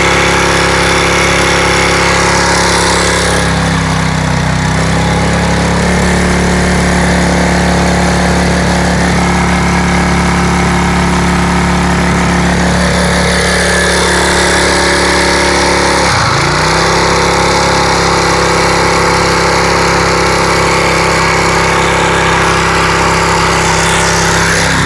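Small 6.5 hp outboard motor running steadily, driving the boat along. Its pitch shifts around four seconds in and dips sharply for a moment about sixteen seconds in before picking back up.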